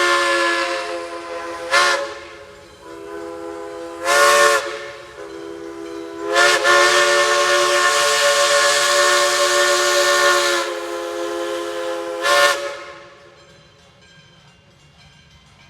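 Steam locomotive whistle blowing a chime chord with a hiss of steam: a blast dying away at the start, short blasts about 2 and 4 seconds in, one long blast of about four seconds, and a last short blast, after which it goes much quieter.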